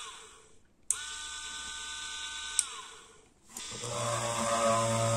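Homemade drill's DC 775 motor switched on and off with a click, whining steadily and winding down each time it is switched off. Near the end it starts again with a deeper, louder hum.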